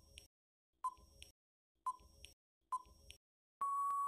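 Quiz countdown timer sound effect: four short electronic beeps about a second apart, then a longer steady beep near the end signalling that time is up.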